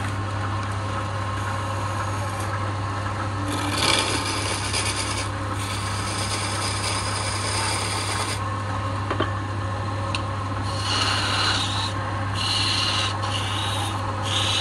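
Wood lathe running with a steady hum while a hand turning chisel cuts the spinning wooden spindle, giving a scraping cut in several separate passes starting a few seconds in.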